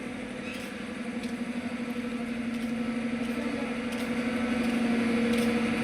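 Air compressor running with a steady, fast-pulsing hum that grows slowly louder, while a radial truck tyre is inflated toward 180 psi.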